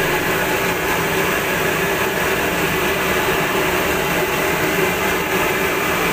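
Hot oil sizzling steadily in a large wok as pieces of tofu deep-fry.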